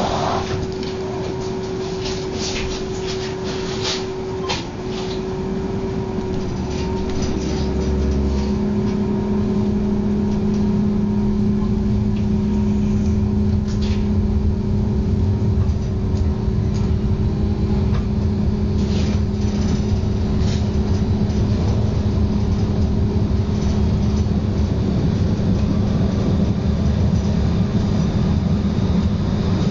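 Electric rail passenger car running, heard from inside: a steady motor hum over the rumble of the wheels and carriage. A second, lower hum and heavier rumble come in about eight seconds in, and there are a few clicks and rattles in the first few seconds.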